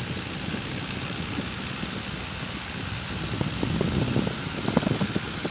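De Havilland Tiger Moth's engine running steadily in cruise flight, heard from the open cockpit mixed with heavy wind rush over the microphone; the noise grows a little louder about three and a half seconds in.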